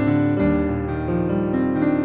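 Background piano music, a gentle melody over sustained chords.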